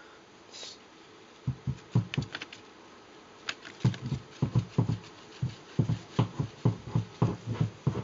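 Irregular low thumps from the amplifier's speaker, a few a second, that start about a second and a half in and grow busier about four seconds in. They come as a sheet of paper is waved through the light path of a 35 mm projector's optical sound head, fed through a Wittner-Kinotechnik Solar 3 optical preamp. This is the preamp's working right channel, heard loud and clear.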